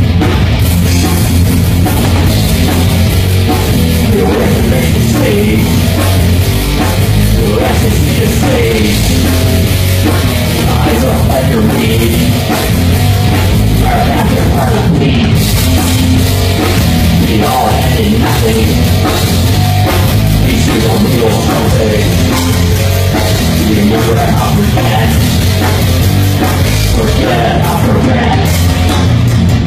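Thrash metal band playing live: distorted electric guitars, bass and drum kit, loud and dense throughout.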